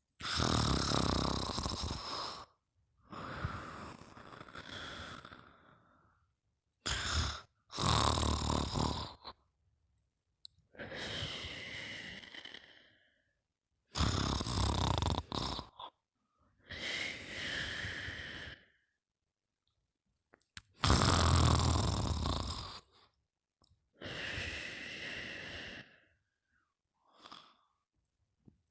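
A sleeper snoring in slow, even breaths, about four cycles. Each cycle is a loud snore on the in-breath, lasting about two seconds, then a softer, breathy out-breath.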